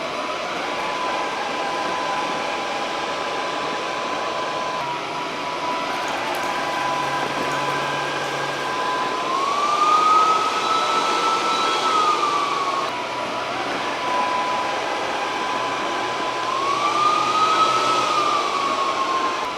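Fmart FM R330 robot vacuum running, with a steady whirring noise and a high whine that twice rises in pitch for a few seconds and falls back.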